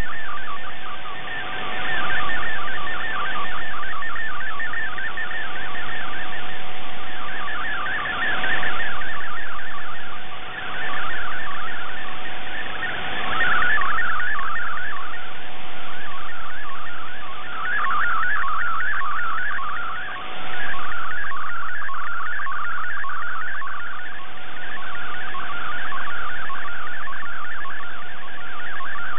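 MFSK64 digital image transmission heard through a shortwave receiver: a dense, fast-stepping warble of data tones over a steady tone beneath. Its strength dips every few seconds as the shortwave signal fades.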